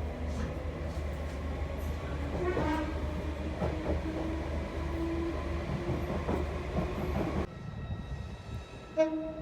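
Merseyrail electric train's horn sounding over the low rumble of a train on the track, one steady note held for a few seconds. After a sudden cut about seven and a half seconds in, a short, loud horn blast comes near the end.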